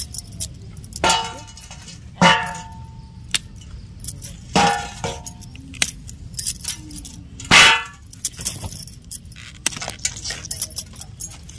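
Taro corms dropped by hand into a stainless steel bowl, each landing with a short ringing clang, four times. Light jangling of bangles and small clicks in between.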